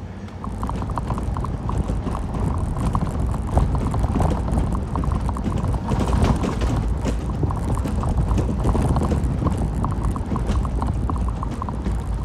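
Wind buffeting the microphone and road rumble while riding a Revel electric rental moped, growing louder about half a second in as it picks up speed. A fast, light ticking runs underneath.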